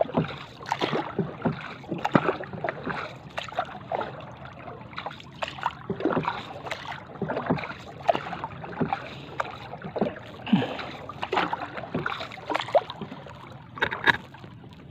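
Wooden paddle stroking through seawater beside a small bamboo-outrigger canoe: irregular splashes and gurgles of water as the blade dips and pulls.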